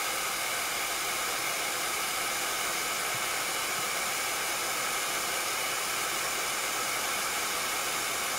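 Handheld craft heat tool blowing steadily, a constant rush of air with a faint even whine from its fan motor, as it dries freshly applied chalk paste.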